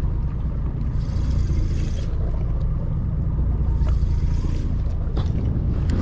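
Steady low rumble of a small fishing boat out at sea, with wind and water hiss. The hiss surges briefly about a second in and again around four seconds.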